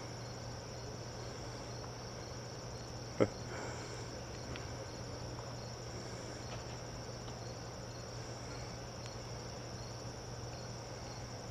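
Steady night chorus of crickets, a continuous high trill with a faint even pulsing, over a low steady hum. A single sharp click about three seconds in.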